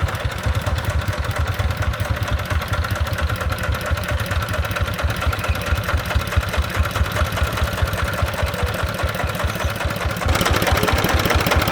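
Single-cylinder diesel engine of a công nông three-wheeled farm truck, chugging in a fast, even rhythm. It gets louder about ten seconds in.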